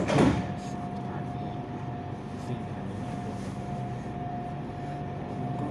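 Interior of an electric commuter train standing at a station: a steady hum with a constant thin whine from its onboard equipment, after a short loud burst of noise right at the start.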